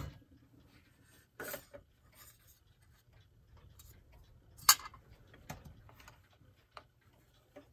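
Quiet handling sounds: a few light clicks and knocks as clock parts are picked up and set down, the sharpest click a little before five seconds in, with faint rubbing between.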